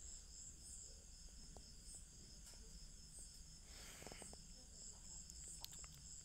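Near silence: a faint, steady high-pitched insect chirring in the background, with a brief soft rustle about four seconds in.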